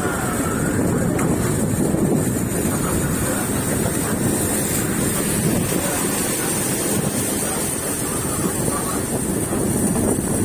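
Fishing boat under way: its engine running steadily with water rushing past and wind buffeting the microphone.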